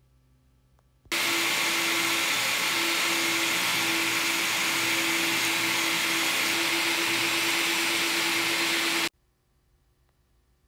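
Bosch jobsite table saw running at full speed while ripping a 2x4 lengthwise: a loud, steady whine with a constant hum under it. It starts suddenly about a second in and cuts off abruptly about a second and a half before the end.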